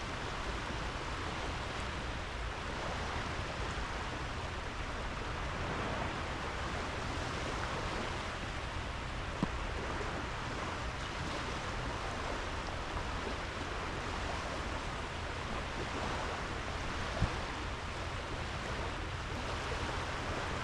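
Sea waves washing onto a sandy beach: a steady hiss of surf over a low rumble, with two brief faint ticks.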